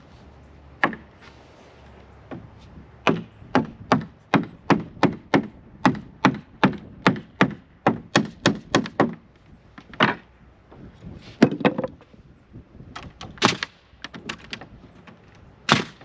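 Hammer blows on 2x4 pine framing, a steady run of about two or three strikes a second for some six seconds. A few separate, sharper bangs follow, the last of them from a pneumatic framing nail gun fastening the boards.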